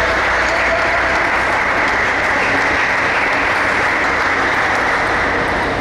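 Spectators applauding with steady clapping that eases off at the end.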